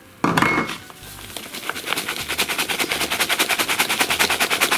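Chopped rhubarb pieces rattling in a plastic mixing bowl as the bowl is shaken quickly back and forth to toss them with sugar, a rapid, even rattle of many small knocks. A sharper clatter comes just after the start, as the bowl is taken up.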